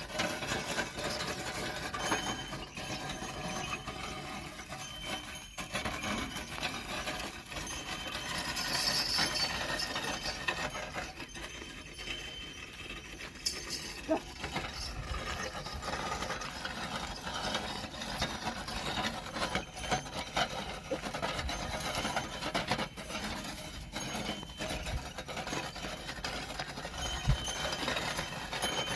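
Field sounds of a bullock-drawn plough at work: a steady noisy background with scattered clicks, clinks and knocks.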